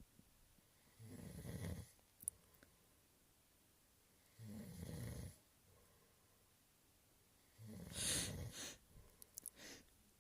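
A person's noisy breaths through the nose, three of them a few seconds apart, the last and loudest about eight seconds in, then a few short sharp sniffs or clicks. This is the build-up while a sneeze is being induced.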